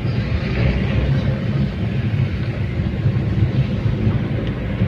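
Steady low rumble of a car driving along, engine and tyre noise heard from inside the cabin.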